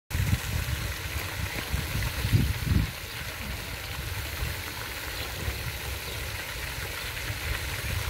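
Pond fountain spraying, its water splashing back down into the pond as a steady hiss. Low rumbling over the first three seconds or so.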